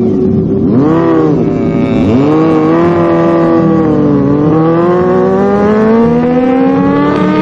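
Engine revving. Its pitch swings up and down over the first few seconds, then climbs slowly and steadily for the last three seconds, over a steadier lower engine note.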